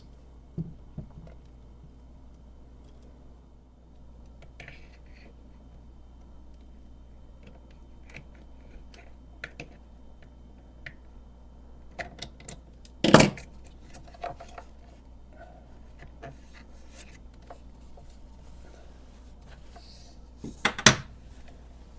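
Hands and tools working around a dishwasher's drain hose and clamp: scattered small clicks and scrapes, with two sharp knocks, one about halfway through and one near the end, over a low steady hum.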